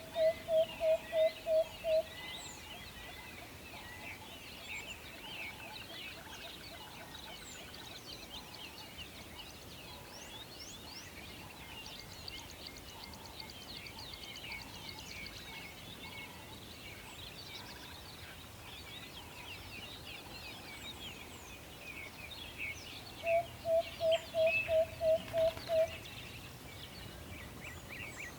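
An owl gives a rapid, evenly spaced series of short hoots, about three to four a second, once at the start and again about 23 seconds in. Underneath runs a steady chorus of many high, thin chirps.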